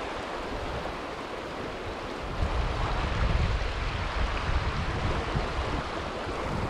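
Steady rush of a shallow, rocky mountain river flowing over cobbles. From about two seconds in, wind rumbles low on the microphone.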